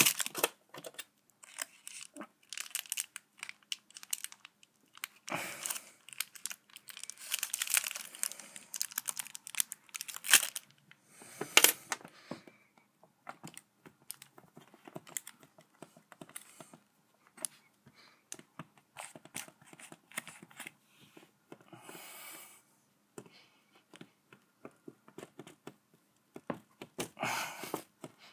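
Hands handling and pressing a sheet of grey modelling clay on a table: irregular soft rustles, small taps and clicks, louder in a few short stretches.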